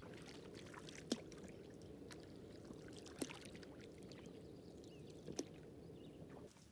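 Canoe being paddled on flat water: a faint, steady wash of water with the swish and drip of wooden-paddle strokes. Three sharp knocks about two seconds apart keep time with the strokes.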